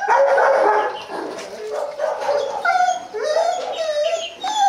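Hmong bobtail dogs whining and howling in a run of high, wavering cries, one after another.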